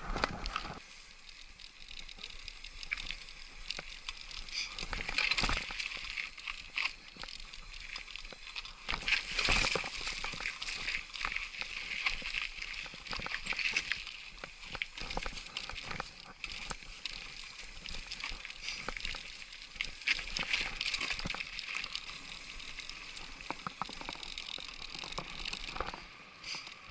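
Trek Superfly mountain bike rattling and clattering down a rocky dirt trail: tyres crunching over stones, the bike jolting with irregular clicks and knocks, with rushing noise throughout.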